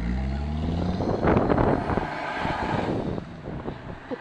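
A car's engine running, then pulling away: its steady note gives way to a loud rush of engine and road noise about a second in, which then fades.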